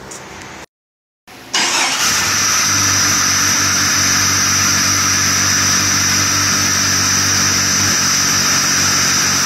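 Freshly rebuilt Jeep 4.0L inline-six, bored .060 over to 4.1L, starting and running steadily about a second and a half in, with a high, steady whine over the engine note.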